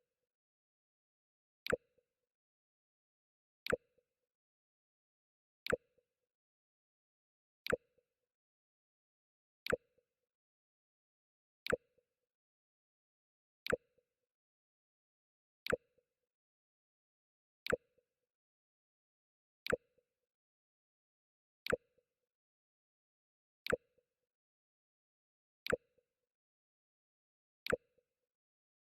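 The Mac OS X 'Jump' alert sound, a very short sharp blip, repeated evenly about every two seconds, each with a faint brief tone trailing after it.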